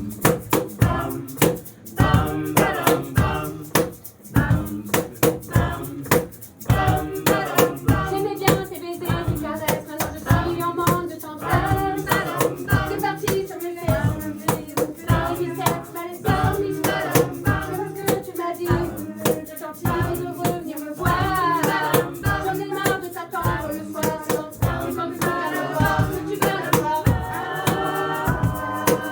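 A cappella vocal ensemble singing held chords without words over a fast, steady percussive beat. Higher voices come in over the chords near the end.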